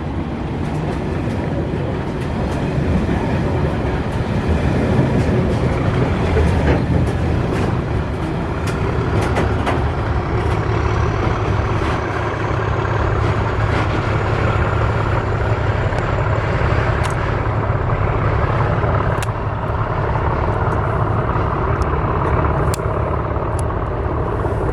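English Electric Class 37/4 diesel locomotive running loud and steady, with its V12 engine giving a deep drone and scattered sharp clicks and knocks over it. A faint high whistle rises slowly through the middle.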